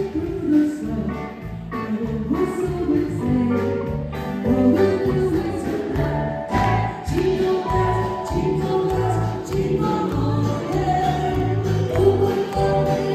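Live band playing a song with a singer over a steady beat.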